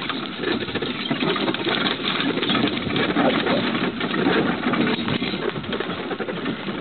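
Horse-drawn carriage behind a pair of Arabian-Percheron horses moving along a rough dirt woods trail: a steady, dense rattle and clatter of wheels and harness, with hoofbeats mixed in.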